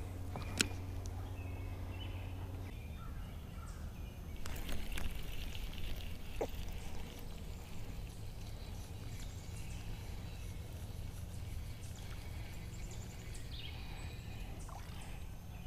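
Quiet outdoor lake ambience with faint bird calls and a few small clicks from a spinning reel and fishing line being handled. A low steady hum stops about two and a half seconds in.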